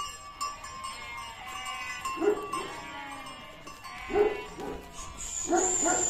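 A dog barking in short pairs of barks, three times, about two seconds apart, over background music. A high steady whistle-like tone sounds near the end.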